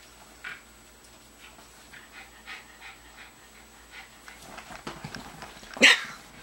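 Excited chihuahua panting in short, soft breaths while being played with, then one short, loud yip near the end.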